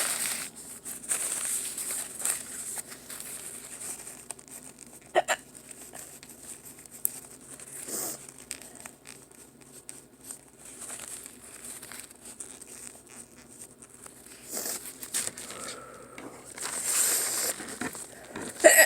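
A person hiccuping a few times, the hiccups set off by eating spicy Sriracha Doritos: short, sharp hiccups, the loudest about five seconds in and another at the very end. Between them a chip bag crinkles and is crumpled, most of it near the end.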